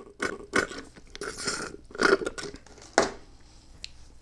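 Slurping through a straw from a paper fountain-drink cup: a handful of short, noisy sucks, the loudest about two and three seconds in.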